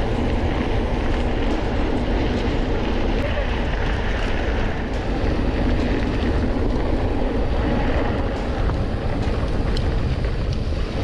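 Wind buffeting a handlebar-mounted action camera's microphone, with the steady rumble of mountain-bike tyres rolling fast over a dirt road.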